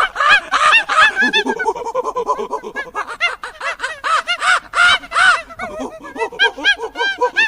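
A flock of birds calling at once: many short, rapid, overlapping calls.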